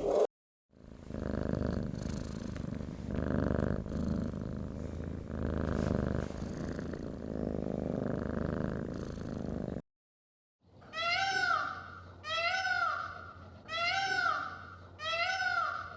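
A cat purring steadily, swelling with each breath. After a brief cut to silence, a run of high, arched calls follows, about one every 1.3 seconds.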